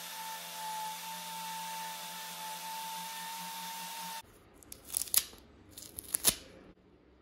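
A power tool spinning a cloth buffing wheel against a knife blade, a steady motor whine that cuts off suddenly about four seconds in. Then come a few sharp crinkling, tearing sounds as the wrapping on the blade's edge is handled.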